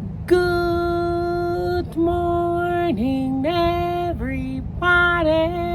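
A woman singing a slow tune in long held notes that step up and down in pitch, with a wavering passage about five seconds in, over a steady low rumble.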